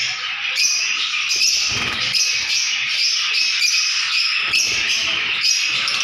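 A colony of lovebirds chattering: a dense, continuous mass of overlapping high chirps and squawks.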